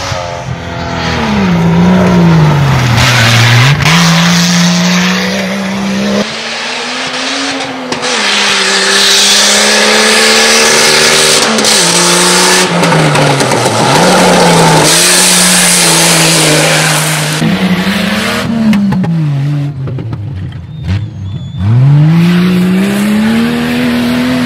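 Off-road rally 4x4 engine revving hard at speed, its note climbing and dropping again and again through gear changes.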